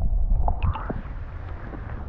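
Muffled low rumble of stream water as heard by a camera held underwater, with a few faint clicks, fading toward the end.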